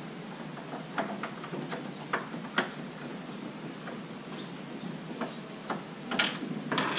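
Scattered clicks and light knocks of hands working the seat fittings and clips on a plastic fishing kayak, the loudest knock a little after six seconds.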